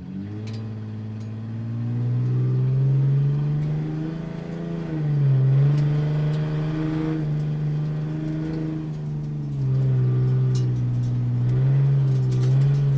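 Sports car engine running close by, cutting in suddenly and then holding a low, steady drone whose pitch dips and comes back up several times as the throttle changes.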